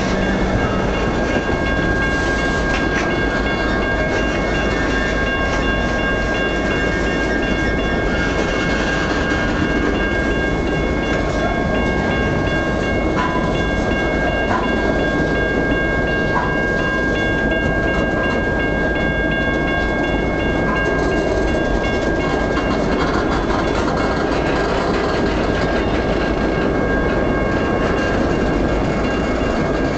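Empty bulkhead flatcars of a freight train rolling past close by: a steady rumble of steel wheels on rail with clicks over the rail joints. A steady high ringing tone sits over it.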